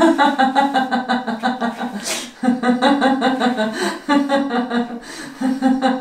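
A man's voice making long, pulsing, wordless sounds in runs of one to two seconds, with a sharp breath in about two seconds in; it has the jerky, chuckling character of laughter.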